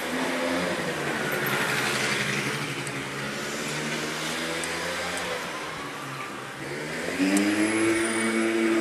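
A motor vehicle engine running nearby, its pitch drifting up and down as it revs, rising and getting louder near the end.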